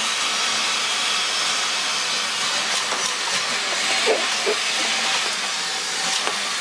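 Old Soviet "Vikhr" vacuum cleaner running with a steady, airy hiss and a faint low motor hum.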